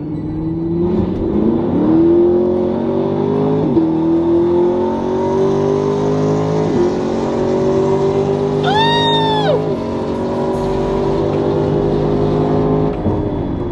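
Car engine at full throttle, heard from inside the cabin during a roll race. Its pitch climbs steadily and drops sharply at each of about four automatic-transmission upshifts. About nine seconds in, a brief higher tone rises and falls over it, and near the end the engine note drops as the throttle is lifted.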